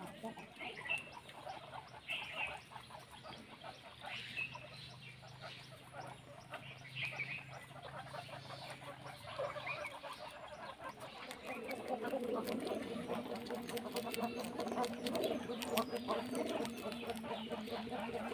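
Guinea pigs eating banana: faint chewing and scuffling clicks with occasional short high chirps. A low steady drone comes in about eleven seconds in.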